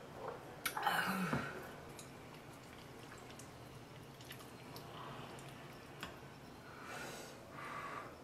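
Eating and drinking sounds at a table: a glass of iced coffee is set down about a second in, the loudest moment. Then a wooden spoon and chopsticks move through a bowl of kimchi sujebi soup, with small drips of liquid and soft chewing.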